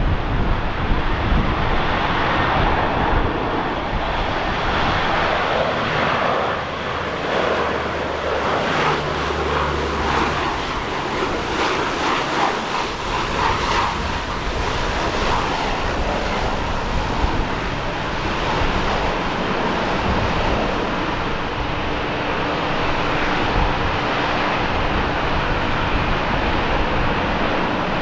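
Airliner engines running at power as a plane passes close by, a steady loud rush of noise, with wind gusting on the microphone. A low steady hum joins about three quarters of the way through.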